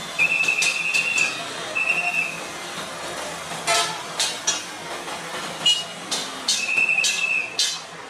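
A shrill whistle blown in three blasts, two close together at the start and a longer one near the end, over street traffic at a railway level crossing, with sharp clicks and clatter in between; the usual warning to clear a crossing before a train arrives.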